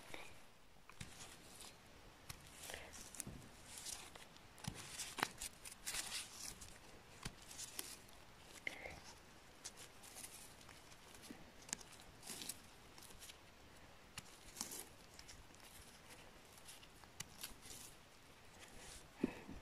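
Gloved hands picking chanterelle mushrooms from moss: faint rustling of moss and needles with scattered small snaps and clicks as stems are pulled and handled.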